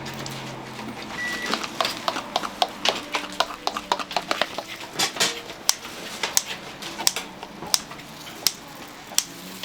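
Kitchen utensils clicking and tapping on hard surfaces: a fast, irregular run of sharp taps, thinning out about halfway through.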